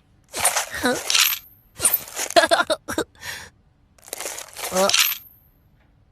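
CinemaSins 'ding' bell sound effect, struck twice: about a second in and again about five seconds in, each a bright metallic ding with a short high ringing tail.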